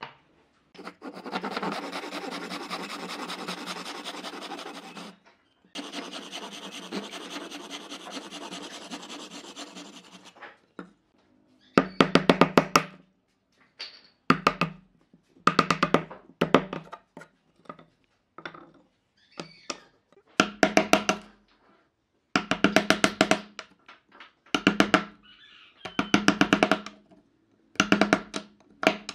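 A saw cutting across two wooden strips in two long spells, then a chisel chopping out the waste between the cuts in short bursts of rapid strikes, each burst about a second long, coming every second or two.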